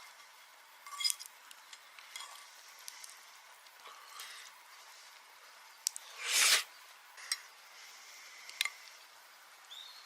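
Food sizzling in an iron frying pan, a steady hiss with scattered light clinks and taps of a utensil, and one louder swish about six and a half seconds in.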